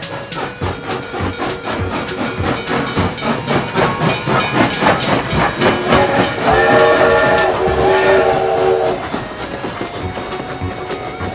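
Toy steam locomotive's recorded train sound: fast steady chuffing with steam hiss, then a multi-note steam whistle held for about two and a half seconds, starting about six and a half seconds in.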